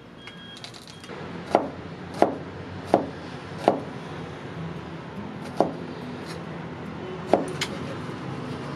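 Kitchen knife chopping peeled garlic cloves on a cutting board: six sharp knocks, four in a row about two-thirds of a second apart, then two more after longer gaps.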